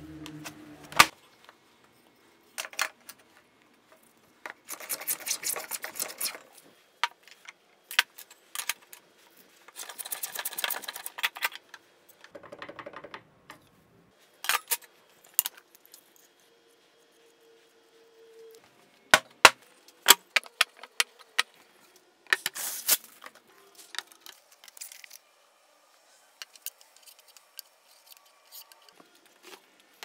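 Intermittent woodshop handling sounds: sharp clicks and knocks of wood and metal tools being picked up and set down, with short scratchy stretches between them and a quick run of knocks about two-thirds of the way through.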